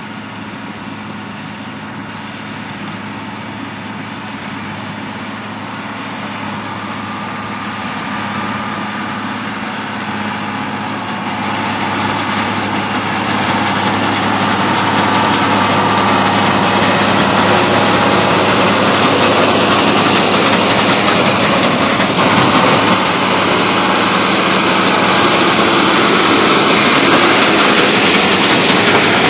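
Tractor and New Holland D2000 large square baler running while baling hay, a steady engine and machinery sound that grows louder over the first half as the rig draws nearer, then holds steady.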